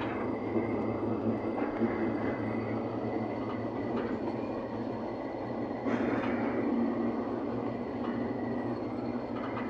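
Diesel locomotive on the move, heard from inside its cab: a steady engine rumble and running noise, with a few clicks from the wheels and a louder surge about six seconds in.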